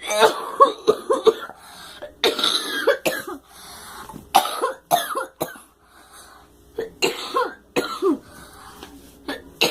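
A girl coughing over and over in fits of several quick coughs, with short pauses between the fits. Some of the coughs are voiced.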